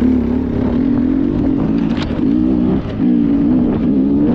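Sherco enduro dirt bike engine running under throttle on a trail ride, its pitch wavering with the throttle. It eases off briefly just under three seconds in, then picks up again.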